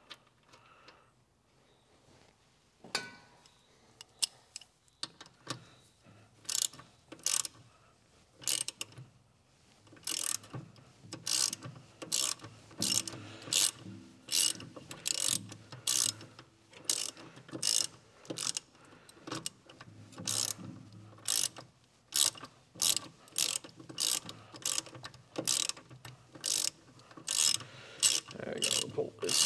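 Hand ratchet clicking in repeated short strokes, about one and a half a second, starting a few seconds in, as it runs in the bolts that pull a new rear wheel hub assembly into the knuckle.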